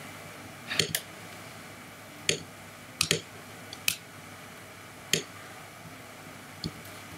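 Sparse, separate clicks of computer input, mouse buttons and keys, some in quick pairs and about eight in all, over a faint steady hiss.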